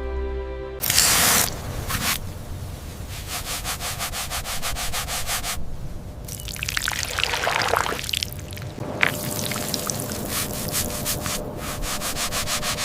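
Quick, repeated rubbing strokes against a hard surface, as in sanding or scrubbing an object clean, with a couple of brief pauses. A piece of background music ends just under a second in.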